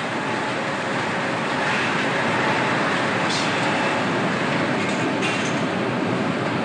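Steady mechanical noise of a steel tube mill running, with a faint steady hum through it.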